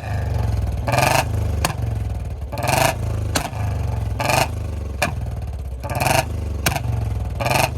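Royal Enfield Bullet single-cylinder engine running, blipped five times in a steady rhythm. About half a second after most blips comes a sharp crack from the exhaust, four in all: backfire pops ('pataka') made by cutting the ignition while fuel keeps flowing. Some blips misfire and give only a weak pop.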